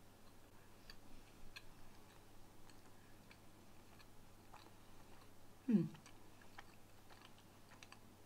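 Faint close-up chewing of a soft pastry, an MRE apple turnover, with small wet mouth clicks. About two-thirds of the way in comes one short hum that falls in pitch.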